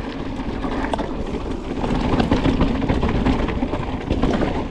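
Scott Genius full-suspension mountain bike riding fast down a dirt singletrack: a steady rush of tyres and wind buffeting the microphone, with many quick rattles and clicks from the chain and frame over the bumps.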